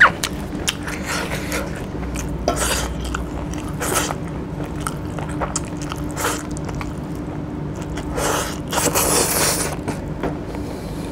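A person chewing and eating a chicken curry with his hands, with irregular louder mouthfuls every second or two and a longer burst about nine seconds in.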